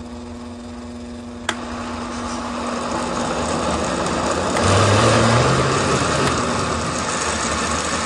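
Countertop blender motor running, churning a thick corn bread batter of whole corn kernels, eggs, condensed milk and flour in a glass jar. There is a click about a second and a half in, and the churning grows louder to a peak around the middle.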